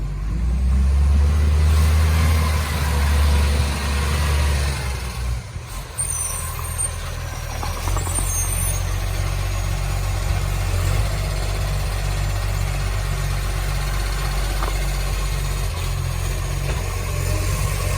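Garbage truck's diesel engine running, louder for about the first five seconds and then settling to a steady idle; the truck has an exhaust leak.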